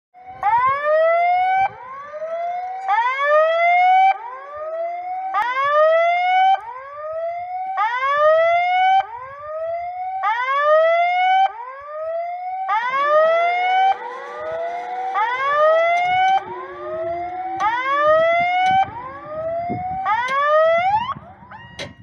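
Railway level-crossing warning signal sounding: a loud electronic tone that sweeps upward in pitch, repeating about every 1.2 seconds. It stops just before the end.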